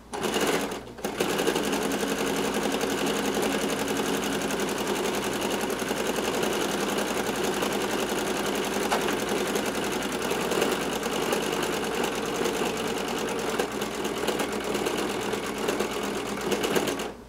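Home sewing machine stitching free-motion embroidery on a baseball cap: a short run, a brief pause about a second in, then a steady, continuous run of needle strokes until it stops just before the end.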